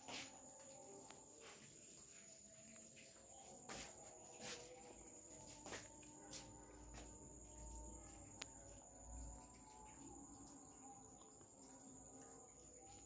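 Faint, steady high-pitched chirring of crickets, with a few soft clicks scattered through.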